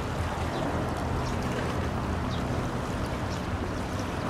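Steady low drone of a passing bulk carrier's engine, over an even hiss of water and wind, with faint short high chirps scattered through it.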